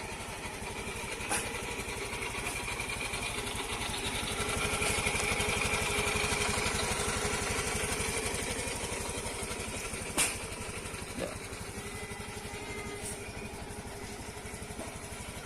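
Motorcycle engine idling steadily, swelling slightly in the middle, with a few sharp clicks, the loudest about ten seconds in.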